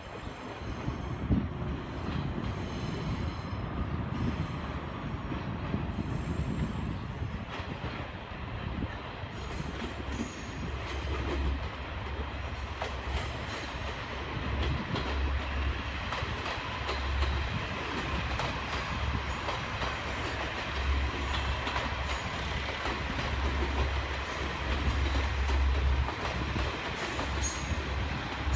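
Diesel railcar train running past on the line, with its wheels clattering over rail joints as a repeating low beat in the second half and a faint steady wheel squeal.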